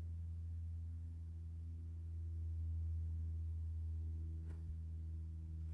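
Steady low hum with a few faint overtones, and a faint tick about four and a half seconds in.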